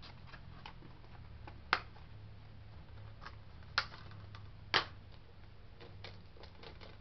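Plastic Blu-ray case and disc being handled: scattered small clicks and taps, with three sharper clicks about two, four and five seconds in.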